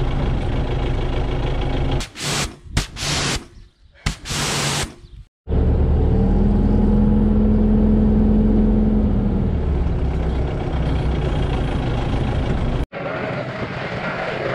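Diesel engine of a Manitou telehandler running, heard from inside its cab, in several abruptly cut pieces with a few short bursts of hiss about two to five seconds in. A steady tone rides over the engine for a few seconds in the middle, and the sound changes abruptly near the end.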